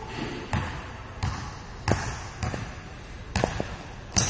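Basketball being dribbled on a hardwood court floor: a string of single bounces, about one every half to three-quarters of a second.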